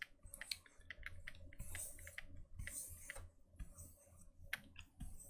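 Pen stylus working on a graphics tablet while circles are drawn quickly: faint, irregular clicks of the nib touching down and lifting, with two short scratchy strokes about two and three seconds in.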